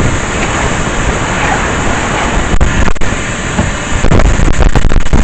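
Vacuum cleaner running with a loud, steady rushing noise, broken by a few brief dips toward the end.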